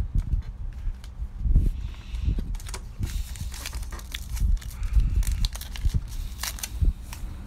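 Handling noise from sorting through trading cards: irregular dull knocks and bumps with sharp clicks and crackles, the clicks thickest in the second half.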